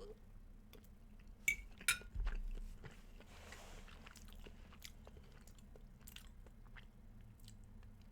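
A person chewing and smacking their lips while tasting jalapeno hot sauce, with many small mouth clicks and two sharp clicks about a second and a half and two seconds in.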